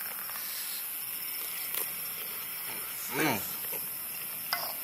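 People chewing mouthfuls of spicy soup, with small mouth clicks and a short voiced murmur about three seconds in, over a steady hiss and a faint high steady tone.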